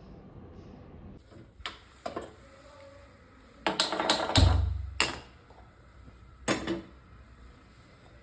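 A few scattered clicks and knocks, then a quick cluster of clattering knocks with one heavy thud a little past the middle, and a last knock near the end.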